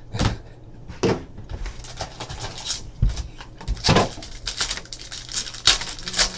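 Clear plastic wrap crinkling and rustling as hands pull it off a trading-card box and pack, in a string of short crinkles.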